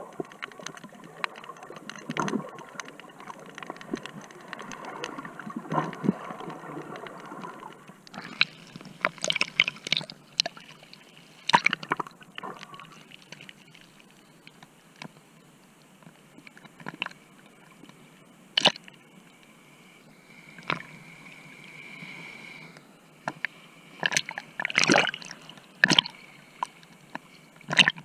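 Water sloshing and splashing around a snorkeler's camera: a steady water noise for the first several seconds, then irregular sharp splashes and knocks from about eight seconds in as the camera bobs at the surface.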